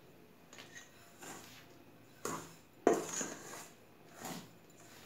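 Kitchen utensils and dishes clinking and knocking: several separate knocks, the loudest about three seconds in.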